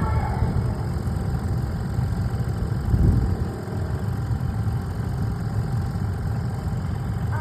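Small engine of a bumper boat running steadily with a low rumble, swelling briefly louder about three seconds in.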